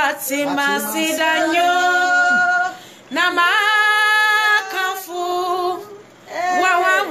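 Women singing a gospel worship song in held phrases, with short breath pauses about three seconds in and again near six seconds.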